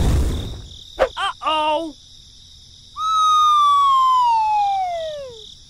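Edited-in sound effects: a burst of noise fading out, a few short bouncing chirps about a second in, then a long whistle falling steadily in pitch from about three seconds in.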